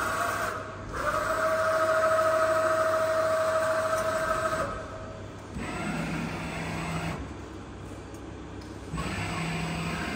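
Ajax AJ310X CNC lathe running with a steady two-tone machine whine. The whine breaks off briefly about half a second in, resumes and stops near the middle. Two shorter, lower hums follow, one about six seconds in and one near the end.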